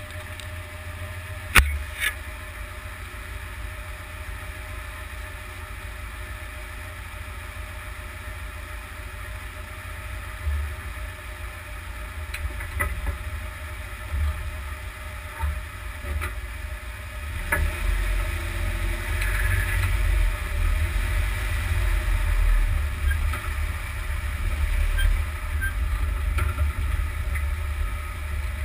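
Road noise of a UAZ Patriot driving over a dusty road, heard from under the front axle: a steady low rumble with a few sharp knocks. It grows louder about two thirds of the way through.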